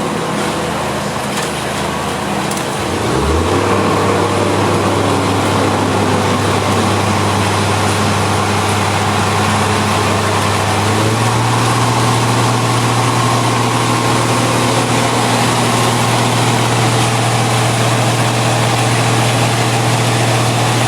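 Engine of a heavy road-works machine running loud and steady. It revs up about three seconds in, then rises slightly again around eleven seconds and holds there.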